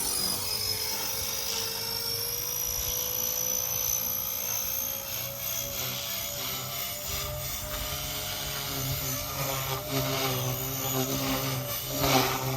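Blade Fusion 180 micro RC helicopter's electric motors whining and rotor blades buzzing. The pitch slides in the first few seconds, then a steady low rotor hum sets in about five seconds in.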